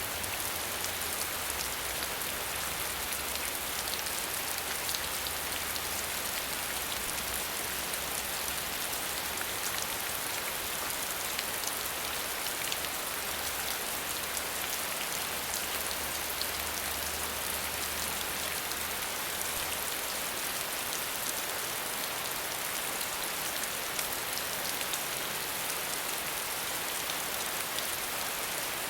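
Falling water: a steady, dense hiss with a fine spatter of drops. A faint low hum underneath stops about two-thirds of the way through.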